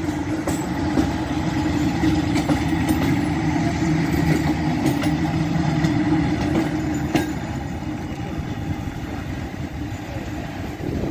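MÁV class 431 (V43) electric locomotive rolling slowly past at close range: a steady hum from its motors and cooling fans, with a few sharp clicks from the running gear. It gets quieter after about seven seconds as it moves away.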